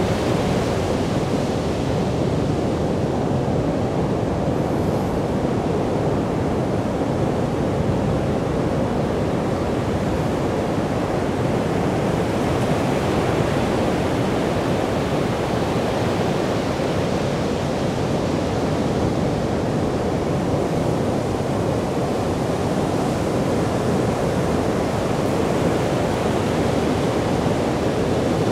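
Sea surf breaking on a sandy beach: a steady, rushing wash of waves with no single crash standing out.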